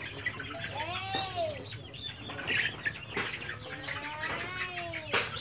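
Black Australorp chickens calling in a coop: many overlapping drawn-out squawks that rise and fall in pitch, with a sharp knock near the end.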